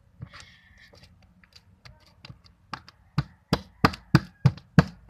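Homemade slime being worked by hand against a table: a series of sharp slaps and taps, a few scattered at first and then about three a second through the second half.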